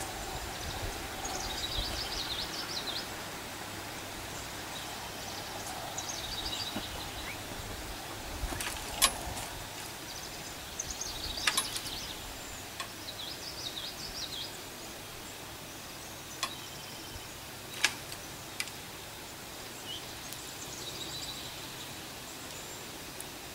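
Songbirds chirping and singing in short phrases every few seconds over a steady outdoor background hiss, with a few sharp clicks in the middle.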